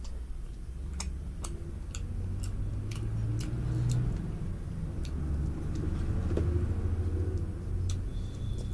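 Close-miked eating by hand: scattered sharp clicks and chewing sounds over a low rumble that grows louder in the middle and eases off toward the end.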